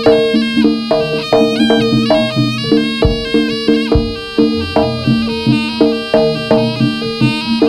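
Live jaranan music: a slompret, the Javanese double-reed shawm, plays a shifting melody over a quick, steady beat of drums and gong-chimes, with a held low tone underneath. Two heavier low strikes, likely the big drum or gong, land about three and four seconds in.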